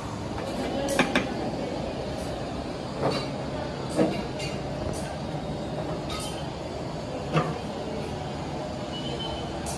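Steady workshop background noise, with a handful of short, sharp clinks and knocks scattered through it, two of them close together about a second in.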